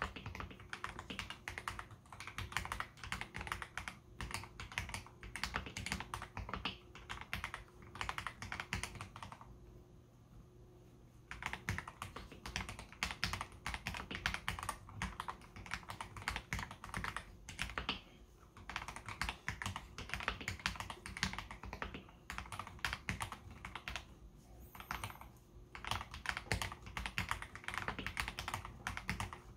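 Typing on a KBD67 Lite R3 mechanical keyboard fitted with lubed AKKO CS Jelly Black heavy linear switches: a fast, continuous run of keystrokes, with a pause of about two seconds a third of the way in.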